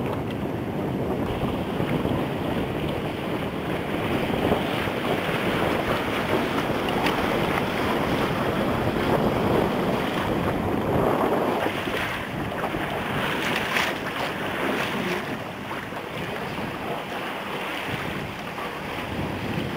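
Wind buffeting the microphone over water rushing and splashing along a moving boat's hull, a little louder through the middle and easing toward the end.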